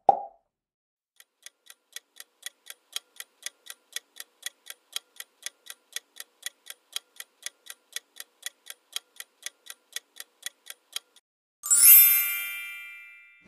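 Quiz countdown-timer sound effect: a clock-like tick-tock ticking evenly for about ten seconds, then a bright chime that rings out and fades as the answer is revealed.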